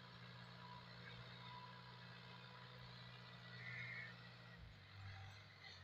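Faint, steady hum of a distant tractor engine pulling a plough through the field. Its note drops lower about four and a half seconds in.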